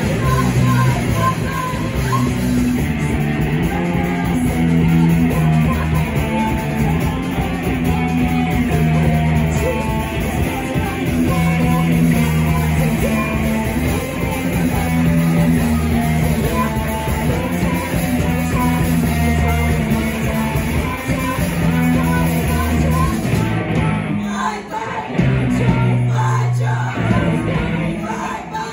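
Live rock band playing: two electric guitars, bass guitar and drum kit, with a woman singing. Near the end the cymbals drop out and the playing turns sparser and stop-start.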